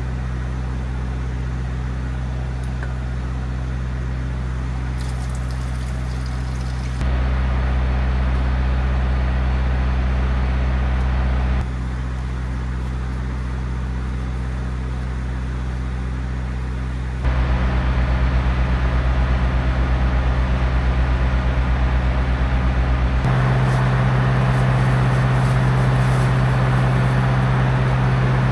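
Steady low drone of engine-driven slurry pumps, a constant low hum that jumps abruptly in level and tone four times.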